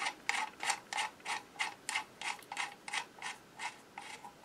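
A threaded metal retaining ring on a Singer 66 sewing machine's bell crank being screwed down by hand: a run of short, regular scraping clicks, about three a second, growing fainter toward the end.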